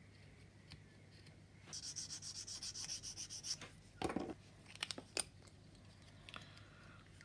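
Hobby knife blade scraping sprue-gate nubs off a plastic kit part: about two seconds of quick rasping strokes. Then a knock as the knife is put down on the cutting mat, and a few light clicks of plastic parts being handled.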